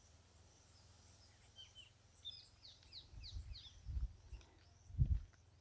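Small birds calling in open country: a quick run of high, falling chirps about two seconds in, with fainter chirps around it. Low rumbling buffets hit the microphone between about three and five seconds in, the loudest about five seconds in.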